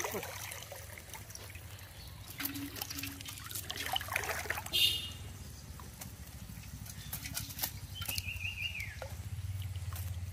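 Water trickling and dripping from a bamboo fish trap as it is shaken out over an aluminium pot, with light knocks and clicks as the shrimp and small fish drop in.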